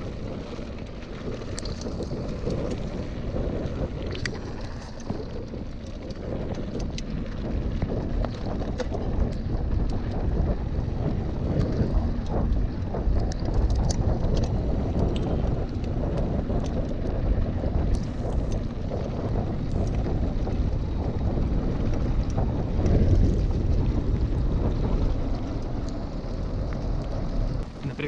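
Wind buffeting an action camera's microphone on a moving mountain bike, over the rumble of tyres on a dirt track, with scattered small clicks and rattles from the bike over bumps.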